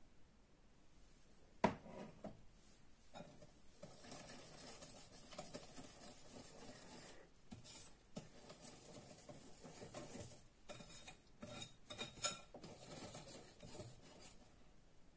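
A wire whisk stirring flour into thick cake batter in a glass bowl: continuous scraping and patter with small clinks against the glass. A single sharp knock comes a couple of seconds in.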